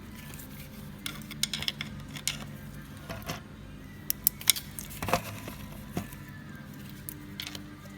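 Scattered sharp metallic clicks and clinks of hydraulic lash adjusters from a Nissan RB25 cylinder head being handled and pressed by hand to check how firm they are, over a low steady hum.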